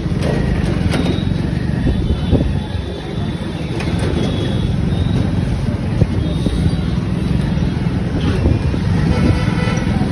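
Steady low rumble of road and traffic noise heard from a scooter riding slowly through a busy city street, with a few faint short high tones from traffic nearby.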